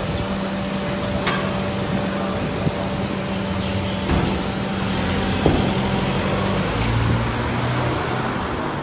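A vehicle engine running close by, a steady hum whose note steps lower about seven seconds in, with a couple of sharp clicks over it.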